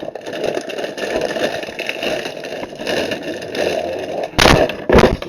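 Crunchy chocolate-hazelnut cereal pillows rattling and crunching in a dense run of small crackles. Two loud bumps come near the end.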